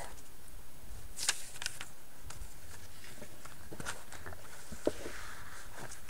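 Paper handling: a few scattered light clicks and rustles as a sheet of paper is slid aside and a page of a small book is turned.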